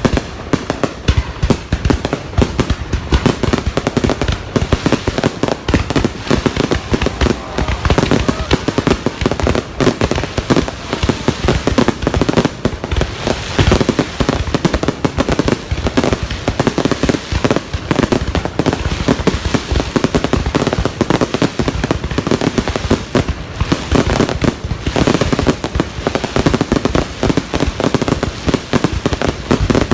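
Fireworks going off in a dense, unbroken run of bangs and crackles.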